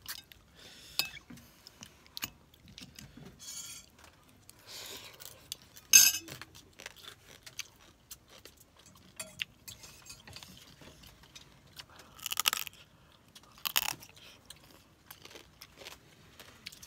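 Field crab shell being cracked and broken apart by hand: a run of separate cracks, crunches and small clicks, the sharpest crack about six seconds in.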